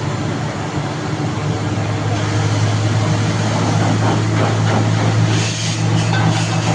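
Heavy engine running steadily at a constant speed, with a low hum and a rattling hiss that grows louder from about two seconds in.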